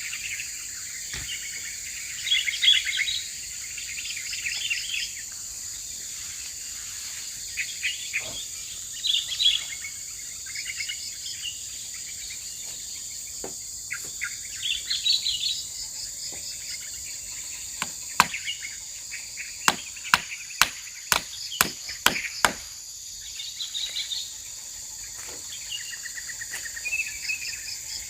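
Steady high drone of crickets with birds chirping on and off. About two-thirds of the way through, a hammer drives a small nail into the wooden fence with about nine quick strikes over some four seconds, after a few single knocks earlier.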